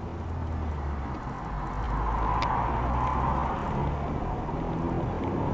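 Car driving, heard from inside the cabin: a steady engine and road rumble that grows louder about two seconds in.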